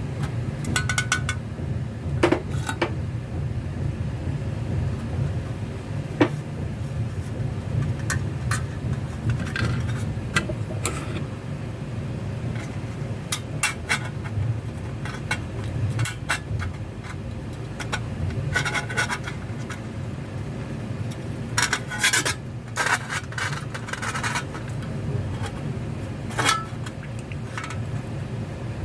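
Small metal toy parts and tools being handled: irregular clicks, light taps and short scrapes and rubs over a steady low hum.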